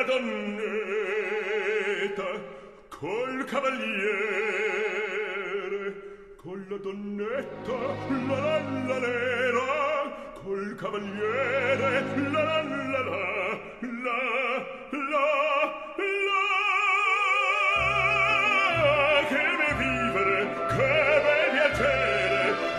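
Operatic singing with orchestral accompaniment, the voice carrying a wide vibrato. A steady pulsing bass beat comes in about three-quarters of the way through.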